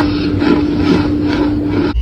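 Close-miked crunching of a brittle material, about two to three crunches a second, over a steady low hum.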